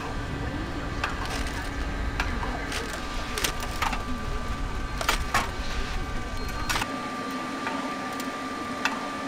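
Food-stall working noise: a steady machine hum with scattered sharp clatters and knocks, over faint background chatter. A low rumble stops about seven seconds in.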